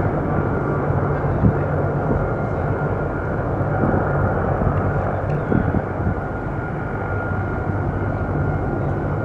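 Northrop Grumman E-2D Advanced Hawkeye's twin Allison T56 turboprop engines idling with the propellers turning: a steady low hum over a constant rushing noise.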